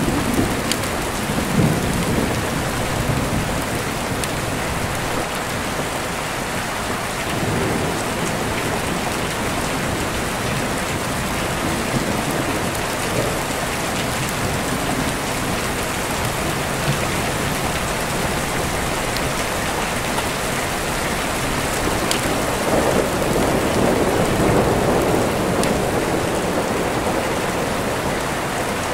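Steady rain with rolling thunder: a low rumble dying away in the first few seconds, and another swelling up about three-quarters of the way through.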